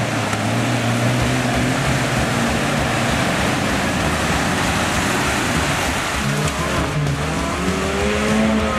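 Off-road 4x4 engine running under load while driving through deep mud, holding a steady pitch at first, then changing pitch and revving up near the end.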